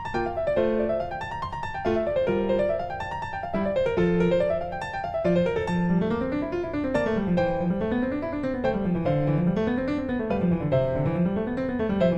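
Background piano music: quick rising and falling runs of notes over a bass line that moves up and down in the same way.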